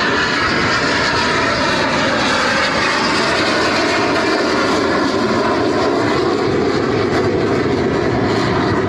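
Fixed-wing display aircraft flying at an air show: loud, steady engine noise whose tone shifts slowly as the planes move.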